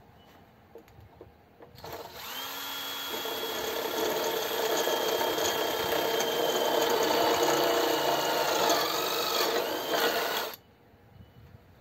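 Makita 14.4 V cordless impact driver spinning a wood auger bit through a slice of fatwood. The steady motor whine starts about two seconds in and sags in pitch a couple of times near the end as the bit bites. It then cuts off suddenly.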